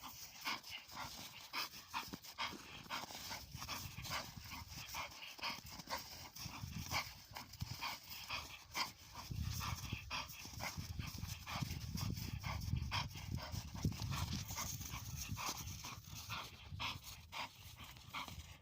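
Bull terrier panting, with many quick taps, likely its feet moving about. A low rumble joins about halfway.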